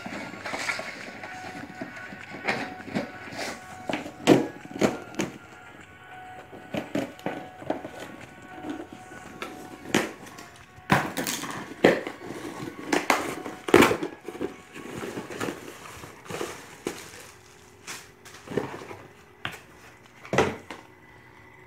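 Cardboard shipping box being opened: scissors snipping the packing tape, and the cardboard and paper packing crackling as it is pulled apart, with many sharp clicks and knocks.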